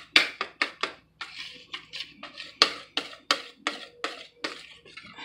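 Wire whisk beating cake batter in a plastic mixing bowl, its wires clicking against the bowl about three or four times a second.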